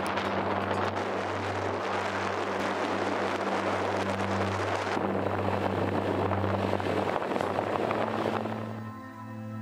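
Wind rushing and road noise from a moving vehicle, over a steady low hum. It fades out near the end as soft music with held notes comes in.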